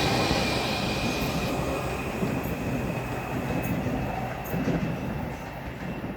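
Class 350 electric multiple unit pulling out of the station, its running noise and a thin high whine fading steadily as it draws away, with a few faint clicks near the end.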